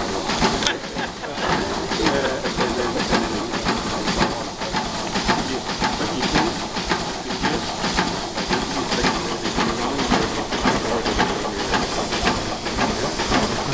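Ruston Proctor portable steam engine running, with steady steam hissing and a regular, even beat from its working stroke.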